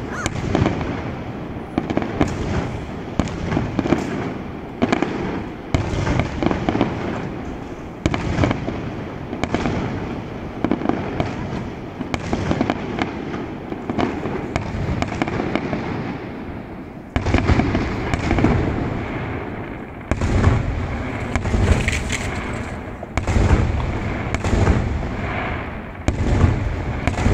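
Fireworks display: aerial shells bursting in quick succession, a dense run of bangs with no pause between them. The bangs grow louder and deeper from about two-thirds of the way in.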